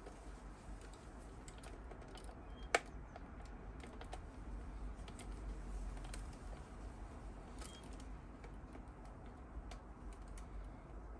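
Scattered light clicks and taps of small plastic model-kit parts being handled and fitted, with one sharp click about three seconds in, over a low steady hum.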